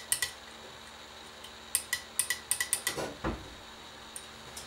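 Quick runs of sharp, light clicks, about a dozen, from the TIG foot pedal's relay being snapped open and closed; the relay had been sticking pinned down. A duller knock follows about three seconds in.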